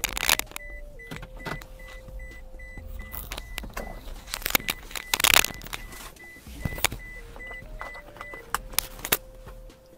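A phone rubbing and rustling against a nylon windbreaker as it is shifted about, with the loudest scrapes at the start and about five seconds in. Faint rapid beeping, about four beeps a second, runs underneath in two spells.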